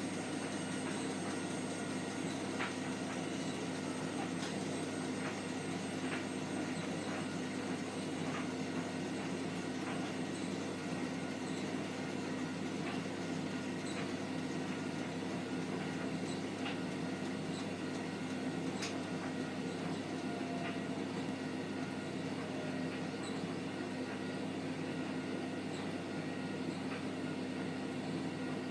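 Hotpoint washing machine drum spinning with a steady hum, with faint scattered ticks on top. This is the squeaking and scraping noise that the owner hears on the 30° spin.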